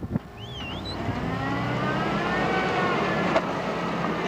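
Off-road 4x4 vehicle's engine running, its revs climbing for a second or two and then holding steady, with one sharp knock about three seconds in.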